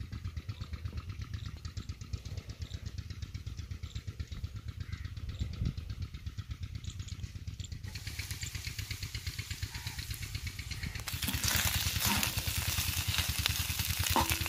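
A steady engine chugging in the background in rapid, even low pulses throughout. From about halfway through, mutton mince (keema) frying on an iron tawa over an open fire sizzles as it is stirred, louder over the last few seconds.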